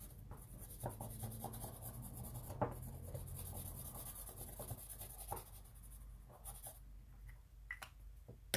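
Blue felt-tip marker rubbing back and forth over a small metal bar, inking the surface as layout dye so the marks show up better. There are a few light taps and one sharp click near the end.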